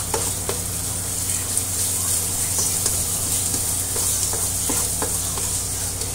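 Chopped garlic, ginger and onion sizzling in oil in a non-stick wok, stirred with a plastic spatula that scrapes and taps against the pan now and then.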